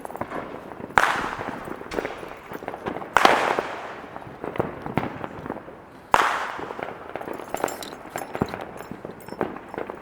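Consumer fireworks going off: three loud bangs about one, three and six seconds in, each trailing off in a fading crackle, with many smaller pops and crackles in between.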